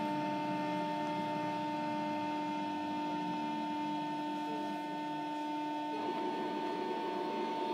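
A JR Kyushu 305 series electric train standing still, its onboard electrical equipment giving a steady hum made of several constant high tones. Near the end the lower tone drops out and a rougher noise comes up.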